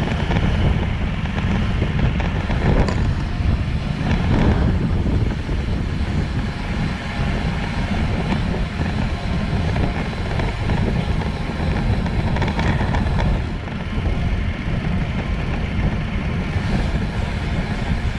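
Steady low wind rumble buffeting the microphone of a camera mounted on a bicycle ridden fast on a road, with tyre and road noise beneath.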